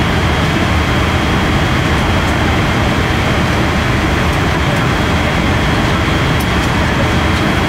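Steady cabin noise of a Boeing 777-300ER in flight during descent: an even rush of airflow and engine noise, with a faint steady high tone running through it.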